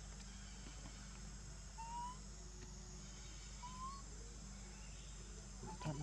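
Faint outdoor ambience: a steady high insect drone, with two short rising whistle-like calls about two seconds apart.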